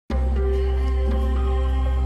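Ambient intro music: a deep, steady bass drone under held, sustained notes.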